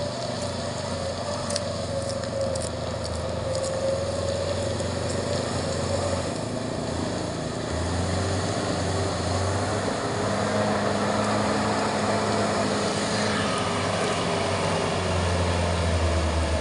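Diesel engine of a loaded Mitsubishi Fuso Canter truck running steadily as it drives along a rutted dirt road, growing a little louder toward the end as it comes closer.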